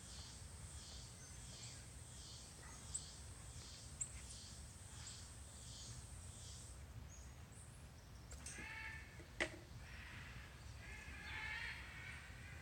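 Faint outdoor ambience with a high chirping pulse repeating about twice a second, then harsh bird calls in the second half. A few sharp clicks stand out, three times.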